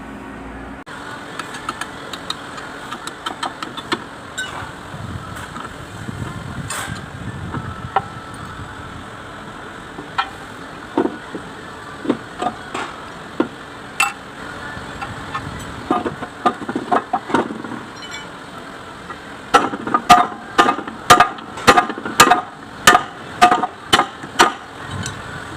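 Scattered sharp knocks and taps over a steady background noise, then a quick run of strong ringing strikes, about two a second, in the last few seconds.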